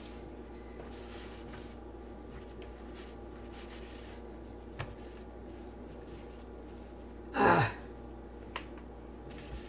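Quiet room tone with a low steady hum and a couple of faint clicks, broken once, about three-quarters of the way through, by a short wordless vocal sound from a person.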